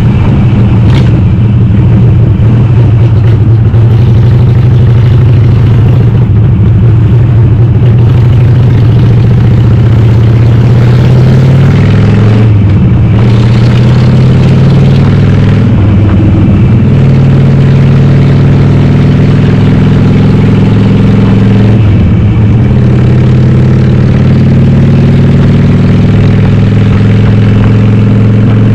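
Harley-Davidson Sportster 883R V-twin, upgraded to 1200, running loud through a Cobra Speedster 909 exhaust with the dB killers removed, heard from on the bike while riding. The engine note rises and falls with the throttle and breaks off and changes pitch a few times, as at gear changes.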